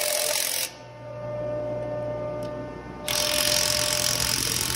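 Cordless impact wrench hammering on a flange nut, tightening a bolt on a separator's discharge pipe. It stops under a second in, leaving a steady hum with one faint tick, and starts hammering again about three seconds in.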